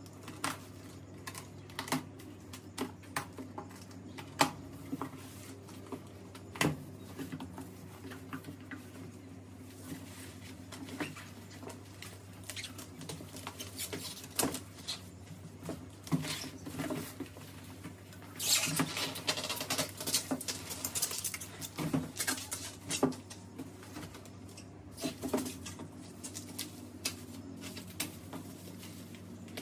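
Cardboard box being unpacked: packing tape slit and pulled, cardboard flaps handled with scattered sharp knocks and scrapes. About two-thirds of the way through comes a dense stretch of plastic bubble-wrap rustling as the wrapped item is lifted out. A low steady hum runs underneath.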